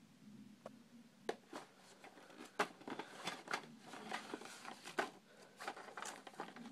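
Paper rules sheet rustling and crinkling as it is handled, a string of sharp crackles.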